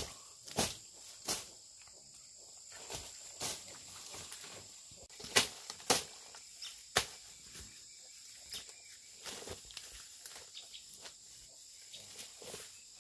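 Weeds and dry leaf litter being chopped and pulled with a hand tool and by hand: irregular sharp strikes and rustles, the loudest two about five and six seconds in, thinning out in the second half. A steady high insect drone runs underneath.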